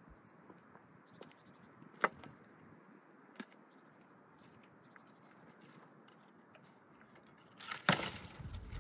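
Dry wooden branches cracking and knocking, a few sharp cracks over a faint outdoor hush, with the loudest cluster shortly before the end.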